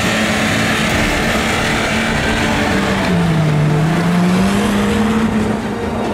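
Off-road 4x4 engine running under load while towing another SUV through sand on a strap; its pitch drops about three seconds in, then climbs back up.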